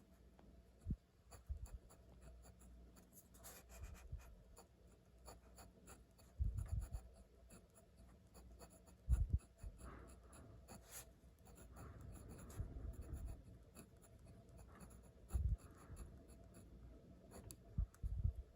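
Pen writing on paper: short scratching strokes, stopping and starting as characters are formed. Several brief low thuds come through at intervals and are the loudest moments.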